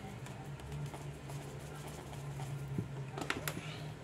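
Dried parsley being shaken from a spice jar onto raw chicken in a glass bowl, with light scattered pattering and ticking, over a steady low hum. A couple of brief sharper sounds come about three seconds in.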